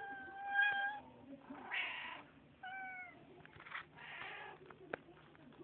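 Domestic cat meowing up close: a long meow at the start and a shorter, slightly falling one about two and a half seconds in, with short noisy sounds between them and a sharp click near the end.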